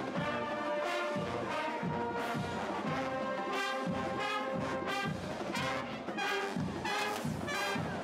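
Brass pep band of trumpets and other horns playing a tune over a steady drum beat.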